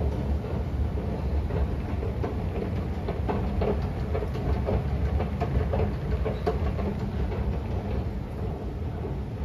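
Steady low rumble of an MRT rail station, with light clicking and clatter in the middle.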